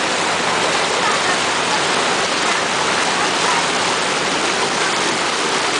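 Floodwater rushing and churning in a steady loud wash as a bus ploughs through a flooded street, pushing up a wave alongside.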